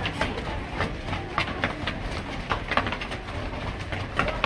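Footsteps of a group of people running up concrete stairs: quick, irregular slaps and scuffs of shoes on the steps.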